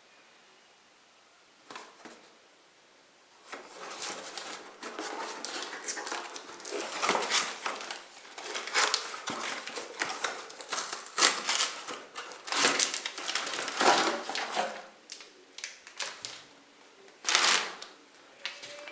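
Packaging being handled and unwrapped: crinkling and rustling with small clicks, running dense from about three and a half seconds in to about fifteen seconds, then one short louder crackle near the end.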